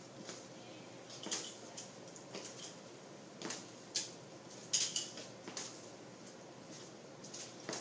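Irregular light taps and slaps of small sand bags being tossed and caught hand to hand in a Bal-A-Vis-Ex exercise, the sharpest about four and five seconds in.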